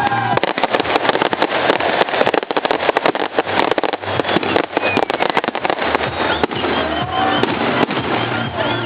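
Firecrackers going off in a rapid, continuous run of crackling pops, with music playing underneath.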